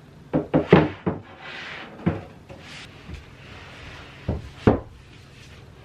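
Flat-pack furniture being handled: hard knocks and thuds of wooden panels, with sliding or rubbing scrapes between them. A quick run of four knocks near the start, one more about two seconds in, and two close together near the end.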